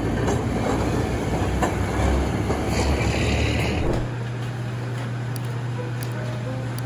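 A streetcar running along its street tracks, a dense rumbling clatter. About four seconds in it cuts off abruptly to a quieter, steady low hum of indoor room tone.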